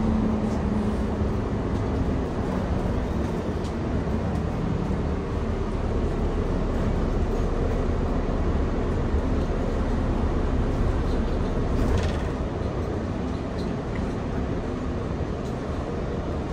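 Interior running sound of a Mercedes-Benz Citaro O530G articulated bus under way: a steady engine and drivetrain hum with road noise, and a brief knock about three quarters of the way through.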